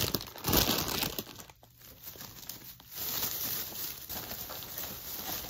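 Plastic shopping bag and candy wrappers crinkling and rustling as they are handled. The rustling is loudest about half a second in, dips briefly, then carries on more softly.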